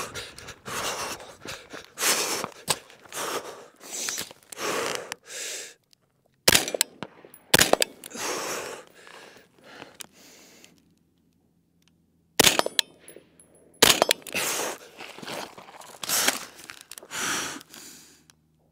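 Footsteps crunching on gravel with gear rattling as a shooter runs, then four shots from an AR-style rifle in two pairs, each pair about a second apart with a few seconds between the pairs. Scuffling of boots, body and gear on gravel follows each pair as the shooter changes position.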